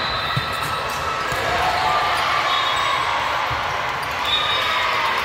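Volleyball play on a hardwood gym court: a ball being struck and thumping on the floor a few times, with voices calling in the large, echoing hall.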